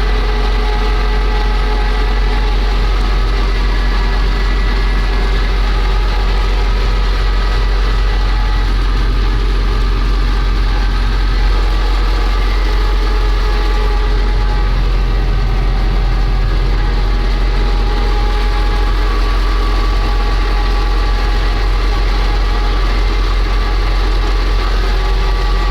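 Vehicle engine running steadily, a constant low drone with several steady tones above it.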